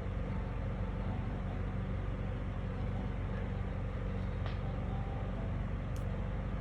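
A steady low mechanical hum, like a running engine, with a brief faint tick about six seconds in.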